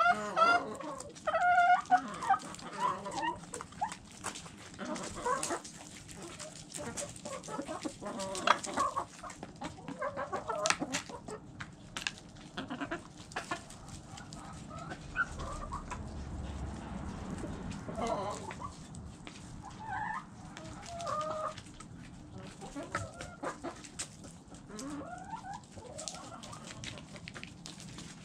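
A flock of backyard chickens clucking softly while they eat, with frequent sharp taps of beaks pecking at food close by. The loudest calls come in the first couple of seconds.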